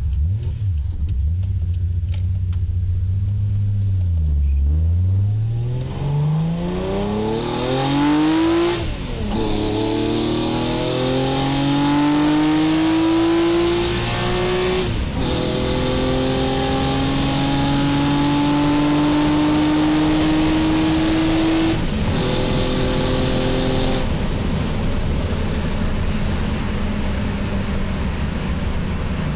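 Car engine pulling away and accelerating through the gears. Its pitch climbs in long rises with gear changes about 9, 15 and 22 seconds in, then it settles to a steady cruise.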